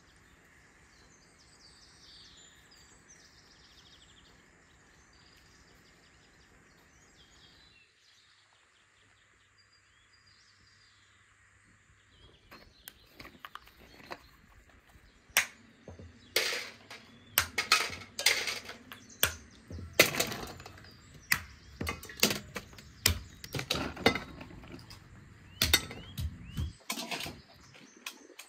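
Faint birds chirping for the first several seconds. From about halfway through, a run of sharp clacks and knocks, at times several a second, from hard whole walnuts in their shells being handled and knocked together.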